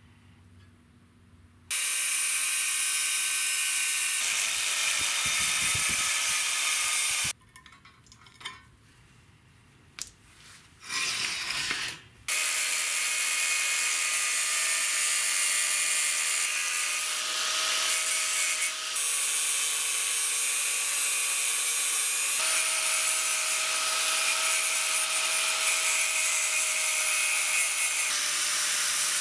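Angle grinder with an abrasive cut-off disc cutting through thick flat steel bar held in a bench vise. It makes a first cut of about five seconds starting a couple of seconds in, then stops for a few seconds apart from a brief burst, and cuts steadily again from about twelve seconds on. Its whine shifts slightly in pitch as the disc bites.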